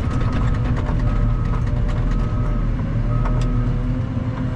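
Heavy dump truck's diesel engine running steadily, with a short high beep repeating about once a second and scattered clicks.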